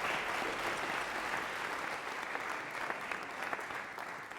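Crowd applauding: a steady patter of many hands clapping that fades toward the end.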